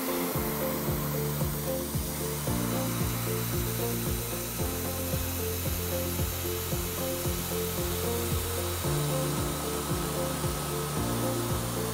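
Tormach PCNC 770 CNC mill cutting aluminum with a 3/8-inch three-flute end mill at 7000 RPM: a steady cutting hiss with a faint steady whine. Background music with a stepping bass line plays over it.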